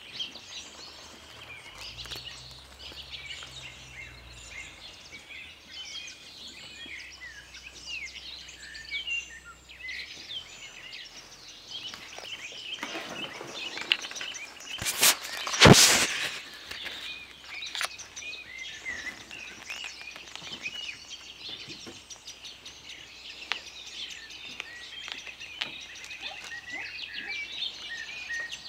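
Birds chirping steadily, many short calls overlapping, with one loud bump about halfway through.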